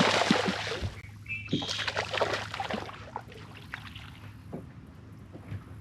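Water splashing and sloshing around a small fishing boat. The sound is loudest as a rush in the first second, then breaks into scattered smaller splashes over a steady low hum.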